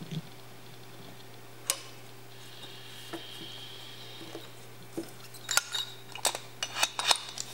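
Metal clicks and clinks of a C-clamp valve spring compressor being worked on an aluminium motorcycle cylinder head while a valve spring, retainer and keepers are fitted. A single sharp click about two seconds in and a faint high squeak for about two seconds, then a quick run of sharp metallic clicks in the last two seconds as the compressor is released and taken off.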